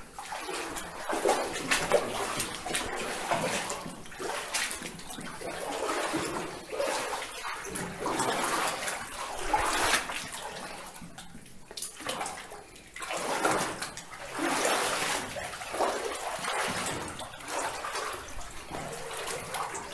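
Footsteps splashing and sloshing through shallow water, in uneven surges.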